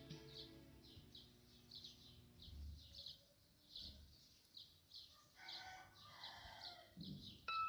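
Near silence, with faint short high chirps repeating about two to three times a second.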